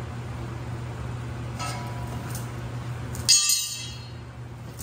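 A faint metallic ping about one and a half seconds in, then a sharp, ringing clang of a metal tool meeting steel a little after three seconds, over a steady low hum.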